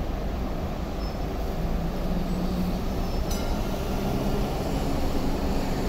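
MTR Light Rail car running along the track as a steady low rumble with a faint hum, with one faint clink about a third of the way in.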